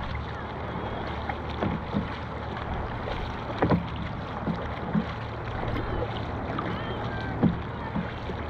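Dragon boat on the water: paddles splash and knock at irregular intervals over a steady low rumble.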